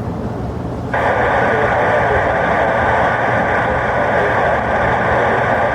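Air-band radio opening about a second in with a steady rush of static and no clear words. Under it runs a steady low rumble of jet aircraft.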